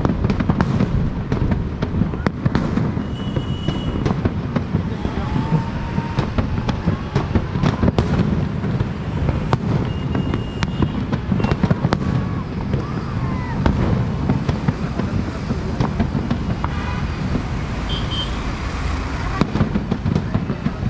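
Aerial shell fireworks bursting one after another: frequent sharp bangs over a constant crackling rumble of many distant and near shots.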